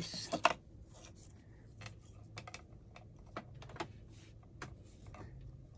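Small handling noises as a spool of craft ribbon is handled and ribbon is pulled from it: a louder rustle in the first half-second, then scattered soft clicks and ticks.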